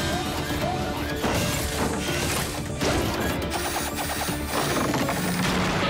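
Cartoon action sound effects: a busy run of crashing, clanking impacts over a background music score.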